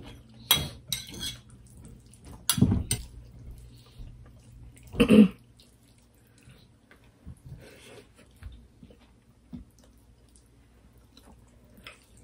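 A metal spoon clinking against a ceramic bowl and plate as curry gravy is spooned out, a few sharp clicks in the first three seconds, with a short louder sound about five seconds in. Afterwards only faint small sounds of fingers mixing rice on a plate.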